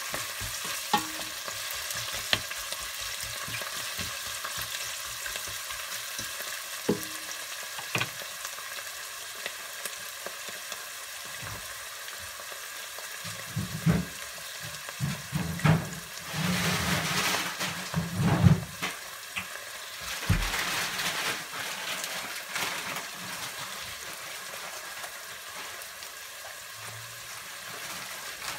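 Chopped onion and parsley sizzling steadily in olive oil in a stainless steel pot, with a few sharp knocks early on. A louder stretch of stirring and scraping comes about halfway through.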